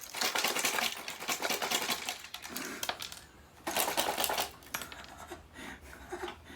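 Plastic casing and parts of an alarm clock radio clicking and rattling as it is pulled apart: a long run of rapid clicks and rattles, a second shorter run about four seconds in, then scattered lighter clicks.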